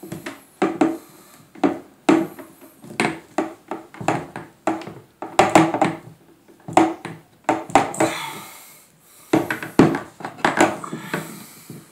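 Plastic PVC pipe fittings and a hose adapter being pushed and twisted together, clacking and knocking against a wooden tabletop in irregular taps, with plastic rubbing on plastic in between.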